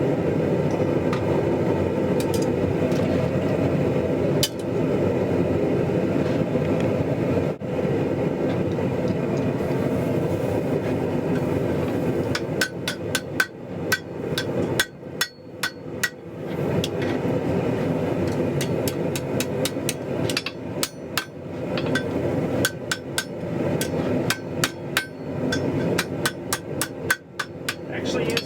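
Hammer blows on hot mild-steel bar over an anvil, bending the curves of a hook: quick, light strikes in runs from about halfway through, several a second. A steady rushing noise runs underneath.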